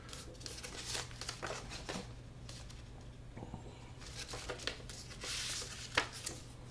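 Paper cards and envelopes being handled: light rustling and small taps, with a longer papery slide about five seconds in as a card comes out of its sleeve, then a sharp click.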